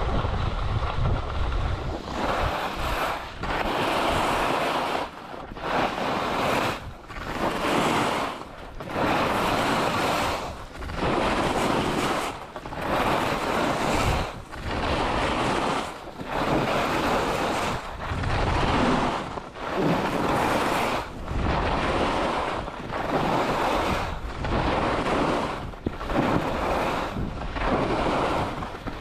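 Skis turning down a snow slope in linked turns: a scraping hiss of skis on snow that swells and drops about every one and a half to two seconds, with wind on the microphone.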